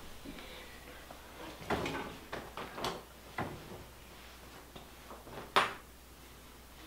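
Wood cook stove being handled at its firebox: a handful of short metal knocks and clunks as its door and parts are opened and worked. The loudest clank comes about two thirds of the way through.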